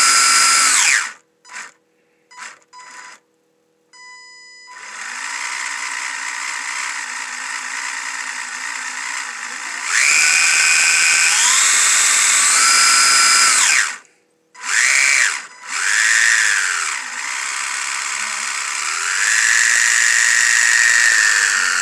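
The electric motor and geared drivetrain of a 1/16 RC drift truck spin its wheels in the air under throttle. The whine comes in several bursts, its pitch rising in steps as the throttle is pushed further and falling away when it is released.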